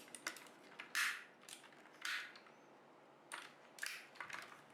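Faint handling noises from a mechanical keyboard being turned over and moved about: a few short scrapes and light clicks a second or so apart, the loudest about a second in.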